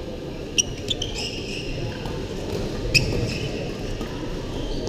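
Badminton rally: sharp racket-on-shuttlecock hits, a few about half a second to a second in and the loudest about three seconds in, with shoes squeaking on the court floor.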